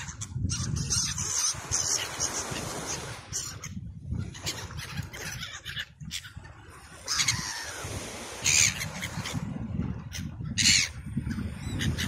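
A flock of gulls calling while they circle to be fed, with a few loud, short harsh calls standing out about seven, eight and a half and ten and a half seconds in. A low rumble of wind on the microphone runs underneath.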